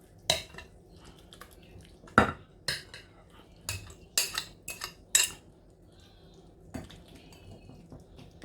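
Spoon clinking and scraping against a bowl and a baking dish while a thick broccoli mixture is moved: a string of sharp knocks through the first five seconds, one more near the end, then quieter.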